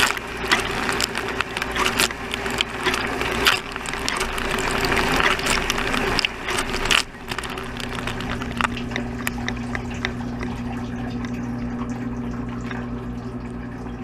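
Dishwasher wash spray pelting the racks and the camera housing, a dense hiss of water full of sharp splashes and drips. About seven seconds in the spray cuts off suddenly, leaving the dishwasher's pump humming steadily with a few drips.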